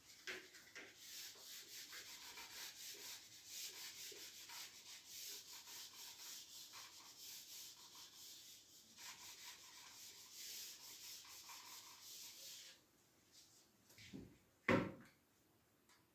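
Whiteboard eraser rubbed back and forth across a whiteboard in quick strokes, wiping it clean, stopping after about thirteen seconds. Near the end comes a single sharp knock.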